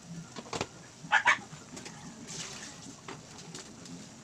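A dog barks twice in quick succession about a second in, over a steady low background.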